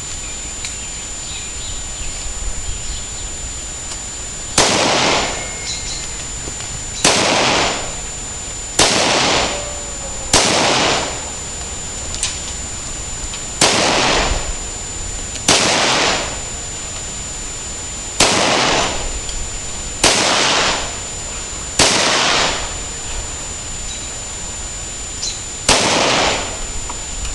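AK-47 rifle fired in single shots, about ten in all, spaced irregularly a couple of seconds apart, each shot followed by about a second of echo.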